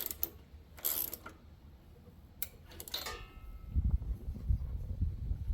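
Ratchet wrench with a spark plug socket turning the new spark plug in the small lawn mower: one clicking ratchet stroke about a second in, then a few metal clicks with brief ringing. An irregular low rumble follows in the second half.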